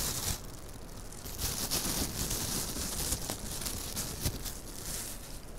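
Thin plastic bag crinkling and rustling as it is handled, with many small sharp crackles.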